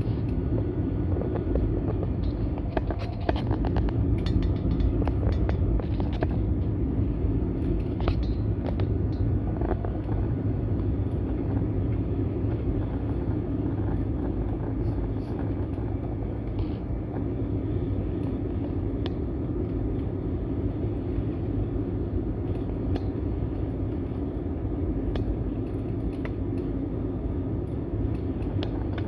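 Steady cabin rumble of an Airbus A320-200 airliner on approach, its engines and airflow heard from inside the cabin, with scattered light rattles of cabin fittings during the first ten seconds or so.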